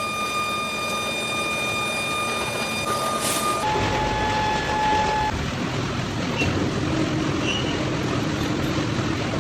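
Steady machinery noise with a high, even whine; about four seconds in the sound changes abruptly to a lower whine and then a low steady hum.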